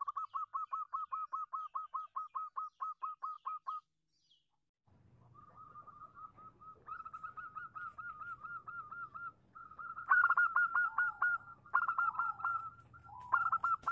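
Female zebra dove (perkutut) calling: fast runs of short staccato cooing notes, about five a second. The calls break off about four seconds in and resume over a steady low hum, growing louder and denser about ten seconds in.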